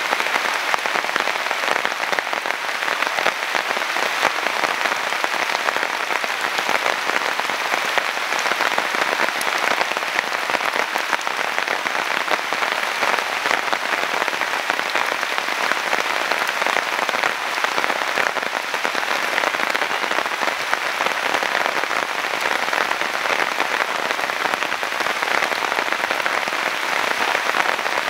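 Steady rain falling, an even hiss of drops that holds level throughout.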